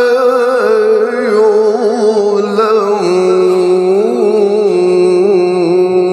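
A male reciter chanting the Quran in the melodic tajweed style, holding long ornamented notes with a quick vibrato. About three seconds in, the voice steps down to a lower held note.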